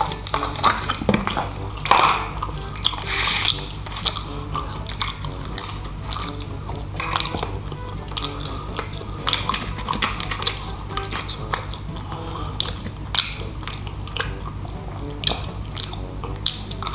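Close-up chewing and crunching of crispy Jollibee fried chicken, with many short sharp crunches spread through, over quiet background music.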